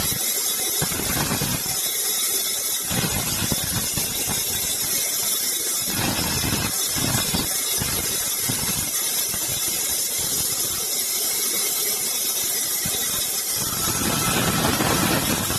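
Sawmill saw running and cutting through wood: a steady high-pitched whine and hiss, with uneven lower surges as the blade works.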